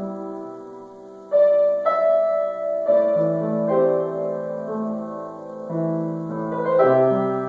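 Solo piano improvisation in a slow, classical style: held chords ring and fade, then a louder chord is struck about a second and a half in, and new chords follow roughly once a second.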